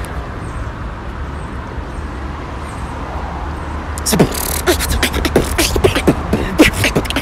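Mouth beatboxing: after about four seconds of only a low steady traffic hum, a fast run of clicks, snare- and kick-like hits and short pitched vocal sounds starts.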